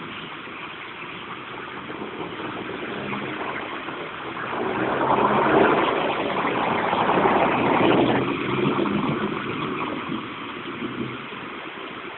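Car driving through standing water on a flooded street: engine hum and tyre hiss swell up from about four seconds in and fade again near ten seconds, over a steady wet-road hiss.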